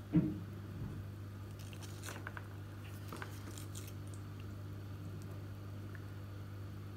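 Soldering iron on the pins of a battery-lead connector, with faint scattered crackles of flux and solder over a steady low electrical hum. A soft bump just after the start is the loudest sound.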